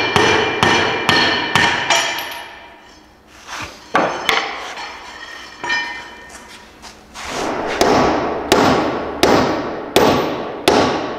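Hammer blows on steel, a bolt and socket on a mower deck spindle shaft, each strike ringing metallically: about five quick blows, a few scattered ones midway, then another run of about six. The hammering drives the spindle shaft down out of its housing to get at the worn spindle bearings.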